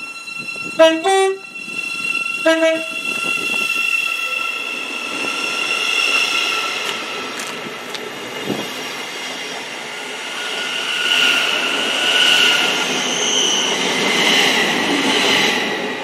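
A Class 717 electric multiple unit sounds its two-tone horn in two short blasts, about a second in and again about two seconds in. It then runs along the platform with a steady electric whine and wheel-on-rail noise.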